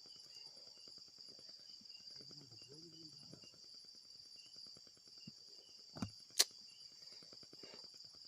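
Night insects chirring steadily at a high pitch, with faint rustling ticks. About six seconds in come two sharp clicks, the second one the loudest sound.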